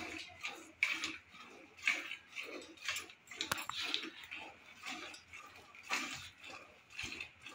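Cow being hand-milked: milk squirting into a steel bucket in a steady rhythm of short hissing strokes.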